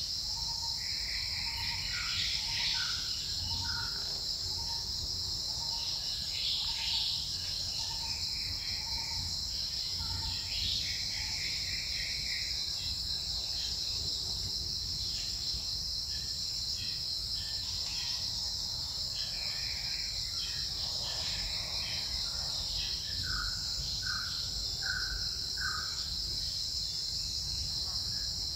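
Steady, high-pitched forest insect chorus, with scattered short bird chirps over it. During the first ten seconds or so, a soft note repeats a little faster than once a second.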